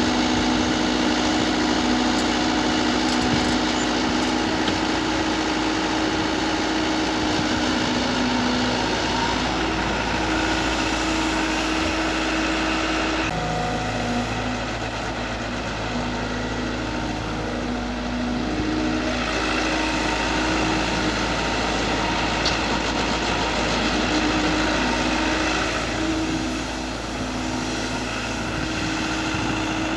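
Diesel engine of an IHI long-reach excavator running steadily while it works, its engine note changing abruptly partway through.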